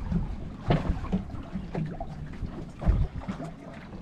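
Irregular knocks and bumps on a small fishing boat, the loudest about a second in and near the end, over water lapping at the hull and wind on the microphone.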